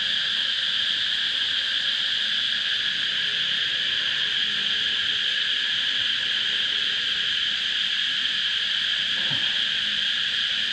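Insects droning steadily at a high pitch, with one soft knock near the end.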